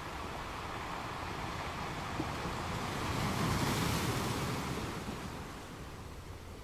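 Ocean surf: a wave swells in to a peak about halfway through, then washes away and fades.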